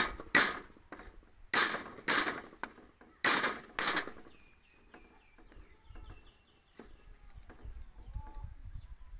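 The flat of a cleaver smacks garlic cloves on a wooden chopping block, crushing them: six hard smacks in three pairs over the first four seconds. After that come only faint small clicks as the crushed cloves are picked apart with the blade.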